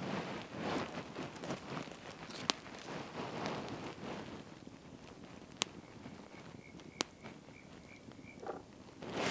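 Small wood campfire crackling while sticks are poked and shifted in it, with scraping and rustling at first, then a few sharp pops as the fire settles. Near the end a faint run of short high peeps, about four a second, sounds over the fire.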